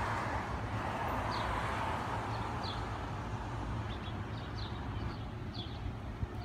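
Outdoor street ambience: a steady rumble of road traffic, swelling about two seconds in, with a few short bird chirps.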